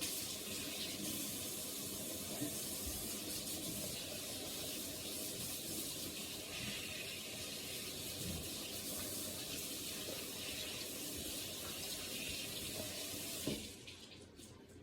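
Water tap running into a sink for hand washing: a steady rush of water that shuts off near the end.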